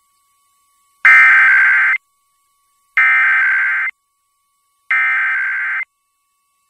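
Emergency Alert System SAME header: three one-second bursts of rapid two-tone digital data, about a second apart. This is the coded opening of a broadcast EAS test.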